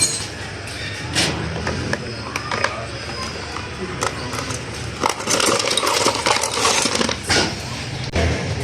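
Metal tools and motor parts clinking, knocking and scraping as an opened electric water pump motor is worked on at its bearing, with a denser run of clattering in the second half.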